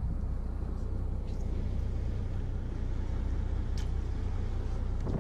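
Fishing boat's engine running steadily: a low, even hum under a haze of wind and water noise.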